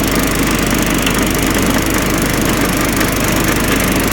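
Riding lawn mower engine running steadily while mowing, a continuous pulsing drone.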